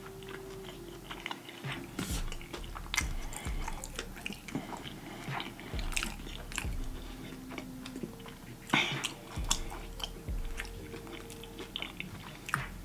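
Close-miked chewing of a mouthful of fried corned beef egg roll: irregular wet mouth clicks and smacks, with a louder smack about nine seconds in.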